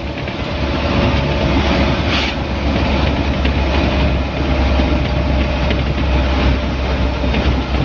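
Vehicle cab interior while driving: a steady low engine drone with road and tyre noise.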